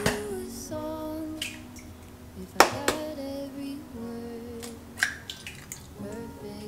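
Soft background music with a female singing voice. Over it an egg is cracked against a glass measuring jug: one sharp crack about two and a half seconds in, and a smaller click about five seconds in.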